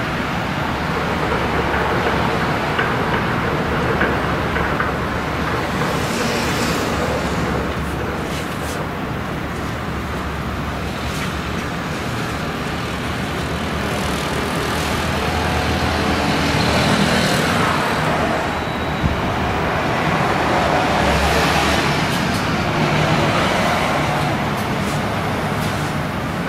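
Gut ship's diesel engine running at low speed as the vessel manoeuvres in to berth, a steady low hum under a broad rushing background that swells and eases slowly.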